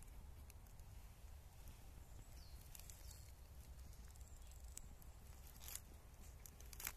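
Near silence: faint outdoor ambience with a low rumble, a couple of faint high chirps, and a few soft rustles or crackles, the loudest near the end.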